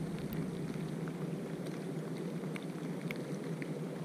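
Light rain: a steady low rush with scattered faint drop ticks.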